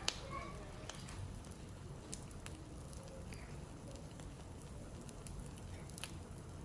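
Potato-and-egg omelette frying in a non-stick pan: a faint sizzle with scattered small pops and crackles as the underside cooks.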